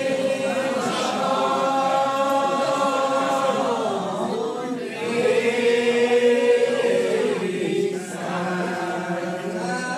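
Unaccompanied Old Regular Baptist lined-out hymn singing. Voices draw out long, slow notes of several seconds each, gliding from one pitch to the next, with three such notes in turn.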